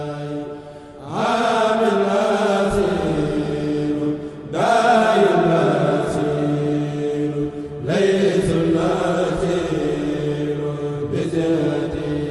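A man's solo voice chanting a devotional religious poem into a microphone. He sings in long, drawn-out melismatic phrases, starting a new phrase about every three and a half seconds, over a steady low drone.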